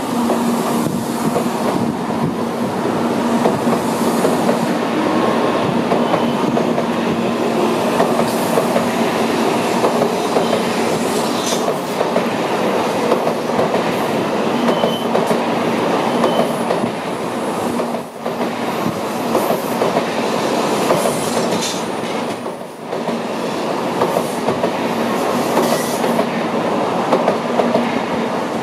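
A Tokaido Shinkansen train running on the station tracks: a steady rumble of wheels on rail with clattering and scattered clicks over joints and points, under a faint steady low hum.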